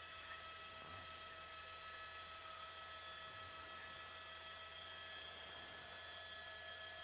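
Faint steady electrical hum with several steady high tones over a low hum, unchanging throughout.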